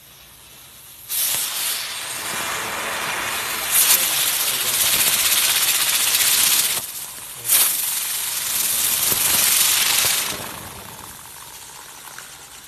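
Small novelty ground firework hissing as it burns and throws sparks. The hiss starts sharply about a second in, drops off briefly just before the seven-second mark, surges back, and dies down after about ten seconds.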